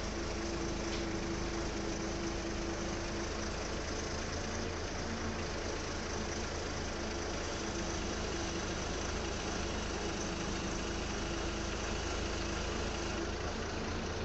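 Mobile crane's diesel engine running steadily, heard close by, with a steady hum and a higher tone that fades in and out.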